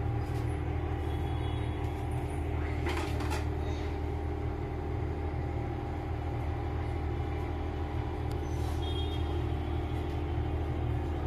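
A steady low machine hum with a few faint clicks, the clearest about three seconds in.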